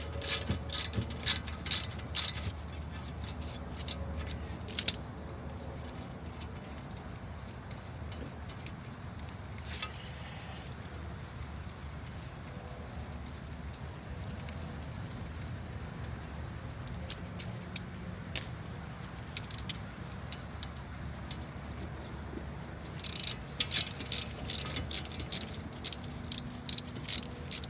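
Metal tool clicks and clinks from a ratchet wrench working on the front brake caliper bolts, in a burst at the start, a few single clicks, and another burst near the end, over a steady low hum.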